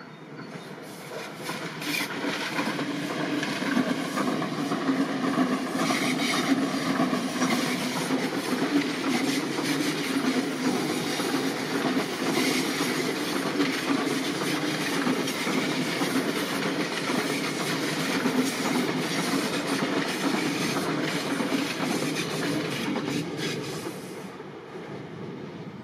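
A train passing by on the line, its wheels running over the track with many quick clicks. The sound builds over the first two seconds, holds steady for about twenty seconds, and fades away near the end.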